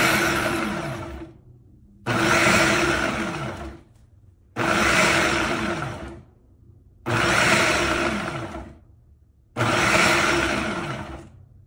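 Ninja BN801 Professional Plus 1400-watt blender pulsing on leafy greens in its pitcher. There are five bursts about two and a half seconds apart. Each starts sharply and dies away with a falling whine as the blades spin down.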